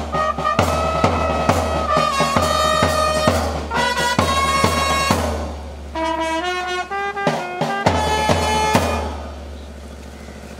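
Music with brass melody over a drum beat, a regular bass-drum pulse with snare hits; it fades out about nine seconds in, leaving a lower steady background hum.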